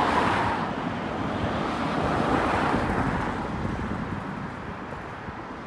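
A car passing on the street, its tyre and engine noise slowly fading away, with wind buffeting the microphone.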